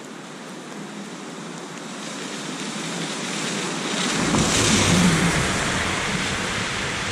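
A vehicle passing on a rain-soaked street: a swish of water thrown up from the wet road grows steadily louder, with a rumble joining about four seconds in and peaking about five seconds in, over steady rain. The sound breaks off suddenly at the end.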